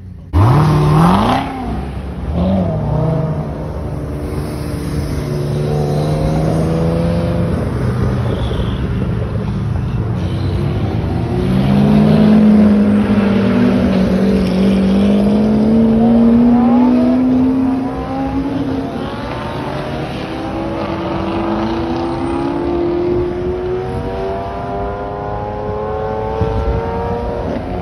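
High-performance car engines revving and accelerating as the cars pull away. There is a sharp rev about a second in, then long engine notes that climb steadily in pitch.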